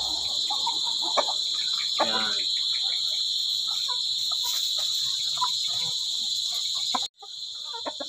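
Steady high-pitched chorus of insects, with a chicken clucking once about two seconds in. The sound drops out completely for a moment about seven seconds in.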